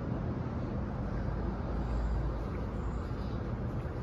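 Steady low hum of an idling vehicle engine, with wind rumbling on the microphone, strongest about halfway through.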